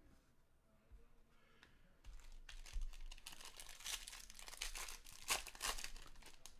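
Foil wrapper of a 2020 Bowman Draft baseball card pack crinkling as it is torn open by hand. The dense run of crackles starts about two seconds in and stops shortly before the end.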